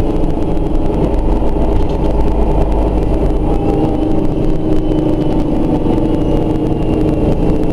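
Mercedes-Benz O 405 N2 city bus running, heard from inside the passenger cabin: a steady engine and drive rumble with a faint high whine above it.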